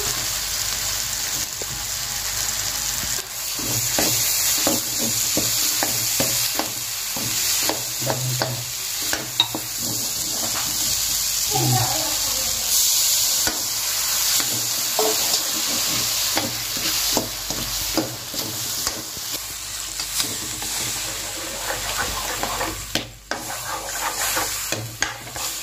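Food sizzling as it fries in a hot pan, stirred with a utensil that scrapes and clicks against the pan. The high hiss is steady, with the stirring strokes coming irregularly throughout.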